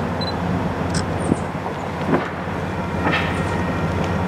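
Norfolk Southern GP40-2's V16 diesel engine running as the train goes by: a steady low drone of engine and rolling noise, with a few sharp clicks along the way.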